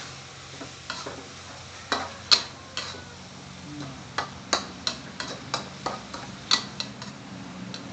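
Metal spatula scraping and knocking irregularly against a wok as minced pork with onion and chili is stir-fried, with the food sizzling underneath. About a dozen sharp clinks spread unevenly through the stirring.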